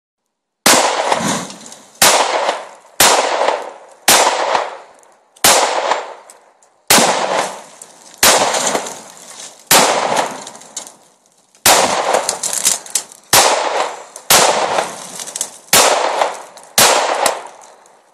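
A .45-calibre Glock Gen4 pistol fired in a steady string of about fourteen shots, roughly one a second, each crack trailing off in a long echo. Exploding targets go off among the shots, one bursting into a fireball.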